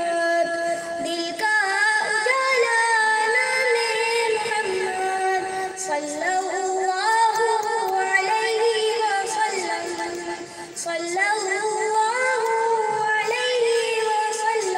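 A boy's high voice singing a naat, a devotional poem in praise of the Prophet, solo into a microphone, with long held notes that waver and slide between pitches.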